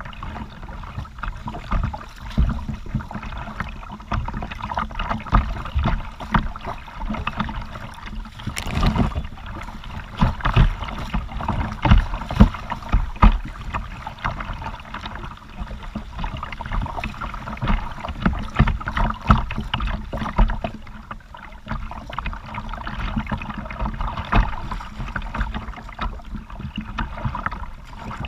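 Kayak paddle strokes dipping and splashing in the creek, with irregular knocks and water sloshing against the plastic hull, close to a camera mounted on the kayak's bow.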